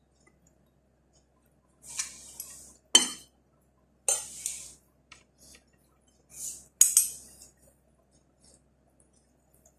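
Cutlery scraping and clinking against a plate during a meal: several short scrapes, with two sharp clinks about four seconds apart.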